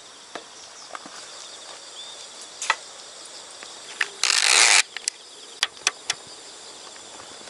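Outdoor insect chorus buzzing steadily, with scattered light clicks and knocks from items being handled on a wooden camp table, and one short, loud hiss about four seconds in.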